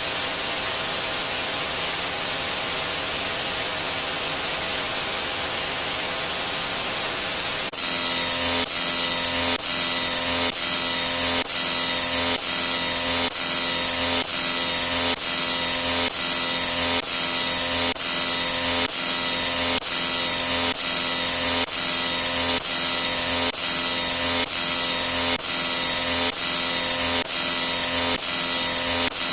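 A loud hissing, static-like sound effect. About eight seconds in, it jumps louder and harsher and then restarts about once a second, as if one short clip is played again for each new number.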